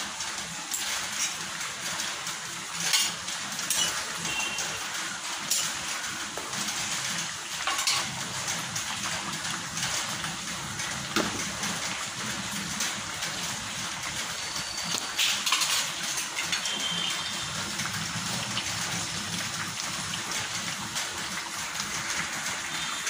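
Dal vada curry simmering in a metal pan, a steady bubbling hiss, with a spoon clinking against the pan a few times.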